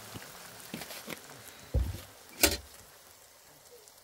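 Cookware being handled over a pan of frying food: a few light knocks and clicks, a dull thud a little before the two-second mark, then a sharp knock about two and a half seconds in, the loudest of them. A soft frying sizzle underneath fades out near the end.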